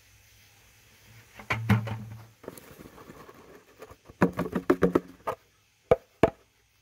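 Sifted sand being dumped into a sandblaster's pot. A loud clatter comes about a second and a half in, then a pattering rustle, a quick run of knocks and clanks, and two sharp clicks near the end.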